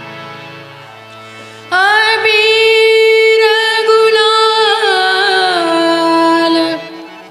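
Devotional song: soft, steady held accompaniment notes, then about two seconds in a woman's voice comes in loud on a long sustained note with wavering ornaments, breaking off near the end.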